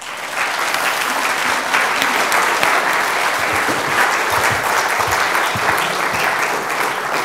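Audience applauding: dense clapping that starts abruptly and holds steady.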